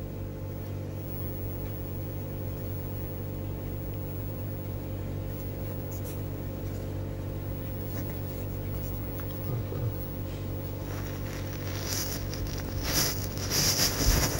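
A steady low hum runs throughout. From about eleven seconds in come rubbing and knocking sounds with irregular loud peaks, as the phone's microphone brushes against the cat's fur.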